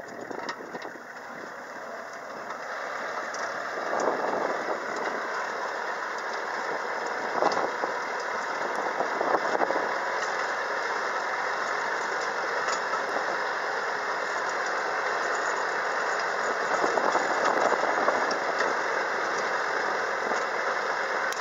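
Kubota tractor running with its rear rotary tiller, converted to cut along a levee, churning through soil: a steady mechanical noise with a rattle and occasional sharp clicks, growing a little louder about four seconds in.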